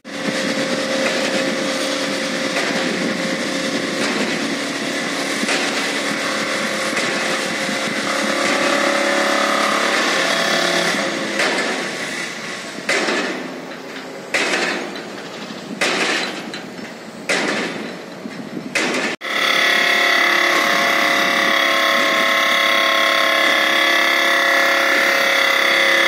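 Excavator-mounted vibratory pile driver shaking a steel sheet pile into the ground, a loud steady buzz with a held tone. Around the middle it runs in several short stop-start bursts, then breaks off sharply and runs steadily again.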